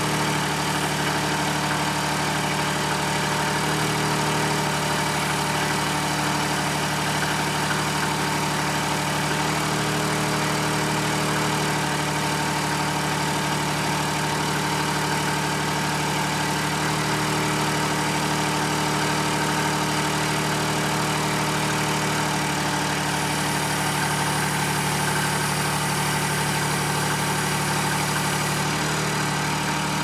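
Boxer mini skid steer's engine running steadily at constant speed while its hydraulics work a Bradco 3265 backhoe attachment, the boom and bucket moving.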